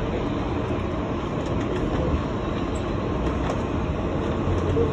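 Steady rumble and wheel-on-rail noise of a New York City subway train running at speed underground, heard from inside the rear car.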